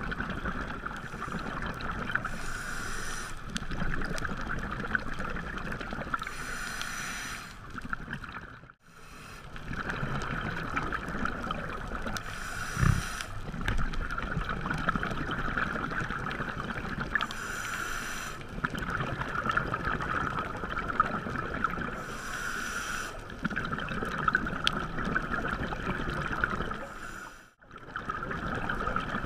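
Underwater sound picked up through a dive camera's housing: a steady crackling hiss, with a burst of scuba regulator breathing bubbles about every four to five seconds. There is one dull knock near the middle, and the sound drops out briefly twice.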